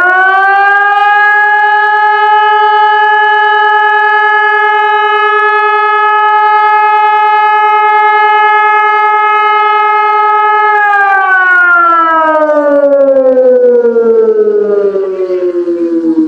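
ECI 2400 civil defense siren sounding. It finishes rising to full pitch in about the first second and holds one steady tone. About eleven seconds in it winds down, falling steadily in pitch, and its level wavers near the end.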